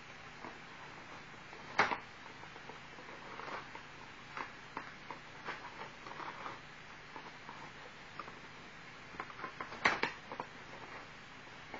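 Hand-cranked cardboard automaton being turned: scattered light clicks and taps from its wooden crank and cardboard mechanism, with two louder sharp knocks, one about two seconds in and one near the end, as the cardboard cube on top moves.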